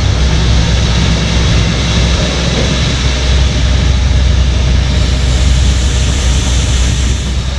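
Heavy diesel farm machinery engine running steadily, a loud continuous low drone.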